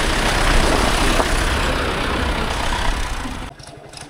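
Tractor diesel engine running with a loud rushing noise over it. About three and a half seconds in the sound drops sharply to a quieter, steady engine putter.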